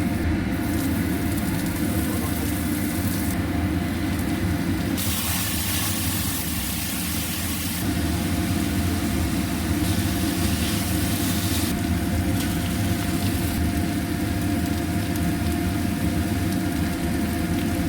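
Steady low hum of a running motor with a faint constant tone. A higher hiss comes in about five seconds in and again about ten seconds in.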